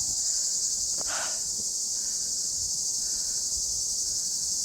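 Chorus of cicadas shrilling steadily and high-pitched in the summer heat, unbroken throughout.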